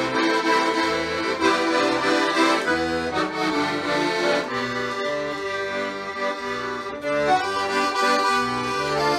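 Accordion music playing a sailors' song (Seemannslied) with a bass line in a steady beat.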